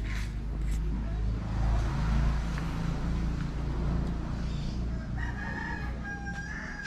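A rooster crowing once near the end, a long held call, over a steady low rumble.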